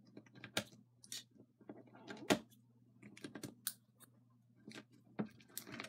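Scissors cutting into a crunchy slime packed with small plastic beads, making irregular crunchy clicks and crackles, a few louder than the rest.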